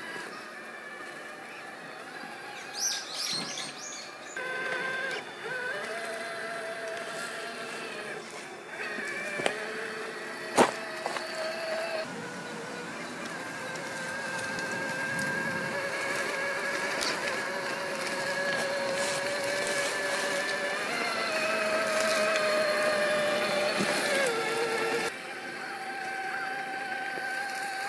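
Electric motor and gear drivetrain of an Axial SCX6 1/6-scale RC rock crawler whining as it crawls over rocks, the pitch slowly rising and falling with the throttle. A single sharp click comes about ten seconds in.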